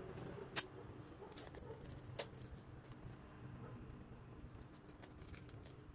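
Plastic shrink-wrap on a manga volume crinkling faintly as hands handle it, with a few sharp crackles, the loudest about half a second in.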